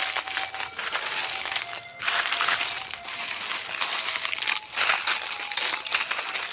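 Crunching, crinkling noise in uneven bursts, with brief gaps between them.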